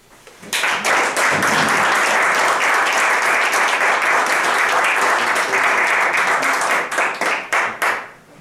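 A group of people applauding. The clapping starts about half a second in and thins to a few scattered claps near the end.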